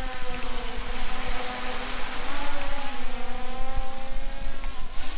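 Quadcopter drone's propellers buzzing, several steady tones that waver slightly in pitch as the motors adjust speed.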